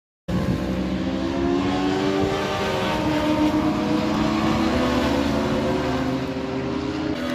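Engines of vehicles lapping a race circuit, running hard, their note sliding slowly up and down. It starts abruptly and eases off slightly near the end.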